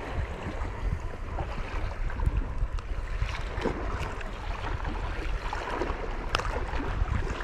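Sea water lapping with wind rumbling on the microphone. A few light ticks come from the hook and lure being worked free of a small codling's mouth.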